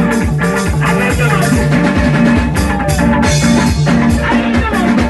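Loud music with a steady drum beat, a bass line and a wavering melody line that may be a voice.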